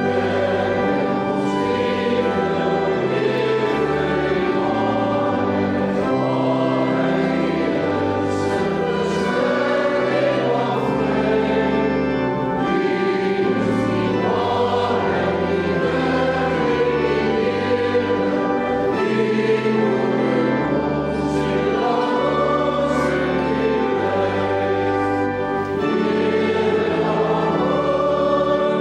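Congregation singing a hymn in Afrikaans with instrumental accompaniment, going from a verse into the refrain near the end.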